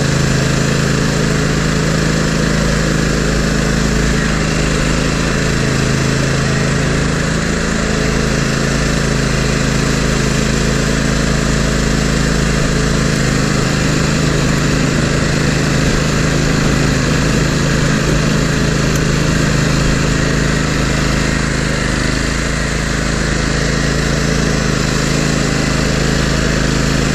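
Toro GrandStand MultiForce stand-on machine's engine running steadily under load, close up, while its front plow blade pushes snow.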